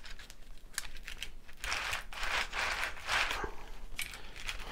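Copper-nickel brake pipe being drawn through a 3D-printed tube straightener's rollers on skateboard bearings: scattered clicks and ticks, with two longer scraping passes about two and three seconds in.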